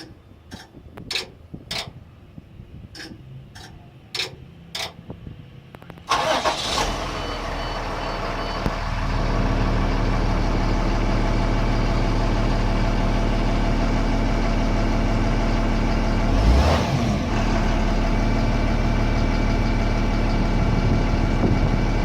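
A handful of sharp clicks, then a Ford Mustang GT's V8 cranks and catches about six seconds in on a cold start, settling into a steady idle.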